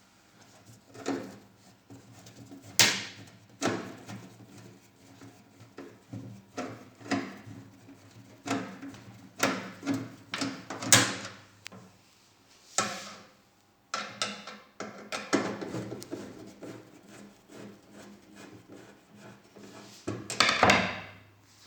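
Irregular knocks, clicks and clatter of hands and tools working on a microwave oven that will not start, with a longer rattling burst near the end.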